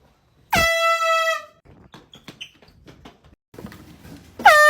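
Air horn blasting twice: a blast of about a second half a second in, then another starting near the end, each dipping in pitch as it starts. Between the blasts, scattered knocks and clatter.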